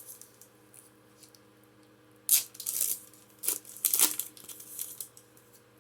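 Foil booster pack wrapper being torn open and crinkled: a quick run of sharp tearing and crinkling noises starting about two seconds in.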